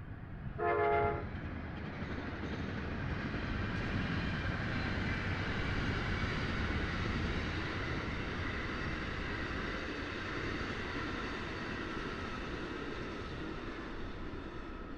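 Amtrak's eastbound California Zephyr passenger train passing at full track speed: a short blast of the locomotive's horn about a second in, then the steady rumble and rush of the locomotive and double-deck cars going by.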